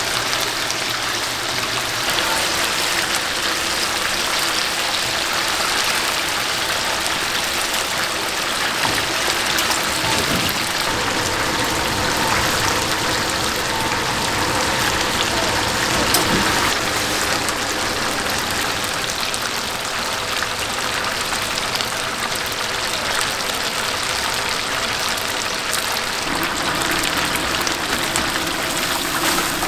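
Chicken deep-frying in hot oil: a steady, dense sizzle.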